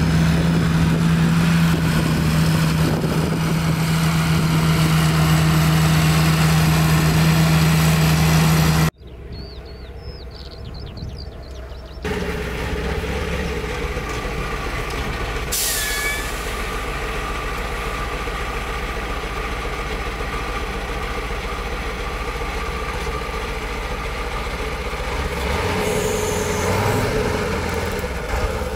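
John Deere 8320R tractor engine running steadily under load with a loud, even drone while pulling a planter; the sound cuts off suddenly about nine seconds in to a quieter stretch. From about twelve seconds in, diesel engines of a tractor and a truck run at a steady, lower level, with a short hiss of air a few seconds later.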